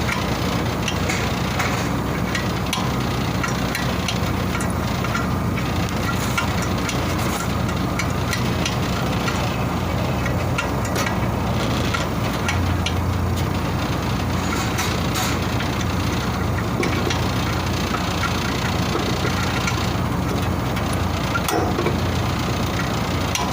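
Steady drone of running machinery with a low hum, and scattered faint metallic taps and clicks from wrench work on the compressor mounting nuts.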